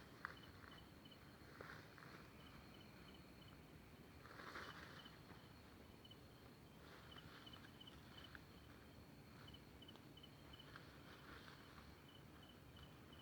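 Faint, irregular rustling and scratching in leaf litter, strongest about four seconds in, from armadillos foraging on the forest floor. A faint high chirp repeats evenly underneath.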